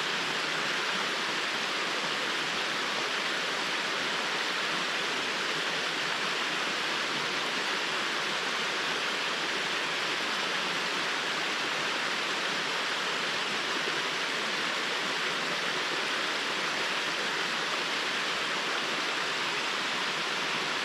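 Small waterfall with water falling and splashing in a steady, even rush.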